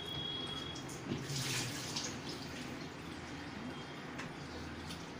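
A few light clicks and rustles from a washing machine control board in its plastic housing being turned over in the hands, over a steady background hiss.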